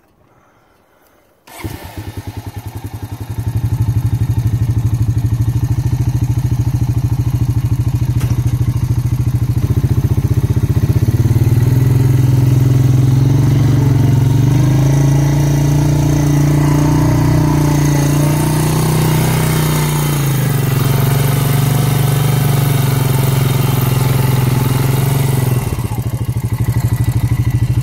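2001 Honda Rancher 350 ATV's single-cylinder four-stroke engine starting about a second and a half in and settling into a steady run. Between about 10 and 20 seconds in its pitch rises and falls before it runs steadily again.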